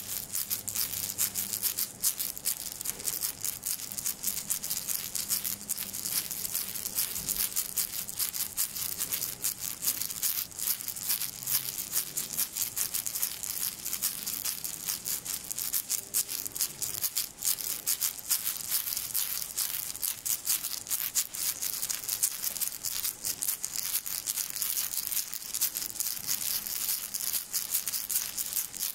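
Small round-headed hand rattle on a wooden handle shaken fast and continuously close to the microphone, a dense, hissy rattling of many quick strokes.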